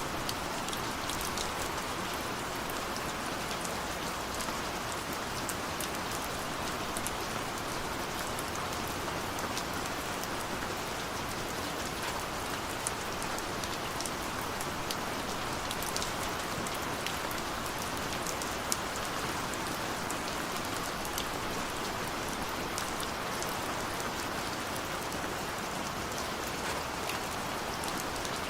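Steady rain falling on a window, a constant hiss of rainfall with many small drop taps scattered through it.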